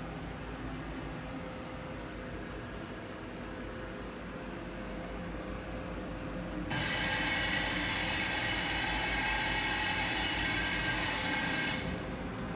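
A low steady hum, then a loud steady hiss that starts suddenly about seven seconds in and cuts off sharply about five seconds later.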